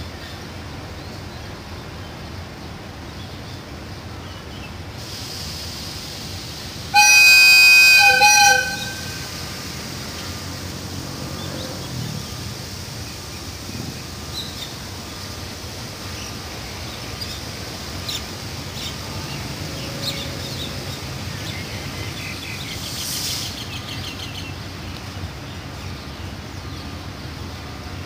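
Diesel locomotive's air horn sounds once, loud, for about a second and a half about seven seconds in, a chord of several tones. Before and after it the locomotive runs with a steady low rumble.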